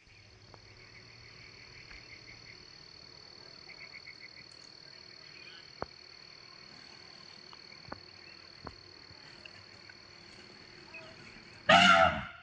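Evening chorus of insects and frogs: a steady high insect drone with short runs of rapid chirping pulses and a few faint clicks. Near the end a loud, brief call of about half a second breaks in.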